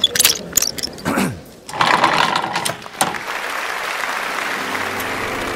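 Sound effects for an animated logo intro: a few sharp clicks, a falling whoosh about a second in, then from about three seconds a steady mechanical clatter, in keeping with a film reel and projector running.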